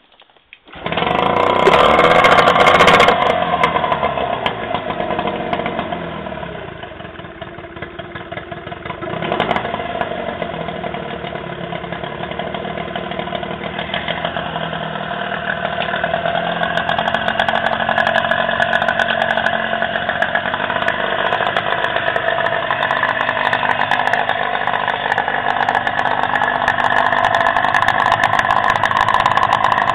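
Mariner 15 two-stroke outboard motor starting from cold after standing for months: it catches about a second in and runs at high revs, the revs sag over the next few seconds, pick up again around nine seconds in, then it settles into steady running.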